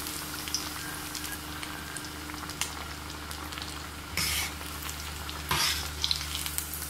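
Egg-coated chicken kababs deep-frying in hot oil in a karahi: a steady sizzle. A few light clicks and two short louder bursts, about four and five and a half seconds in, come as the pieces are turned and lifted with metal tongs and a slotted spoon.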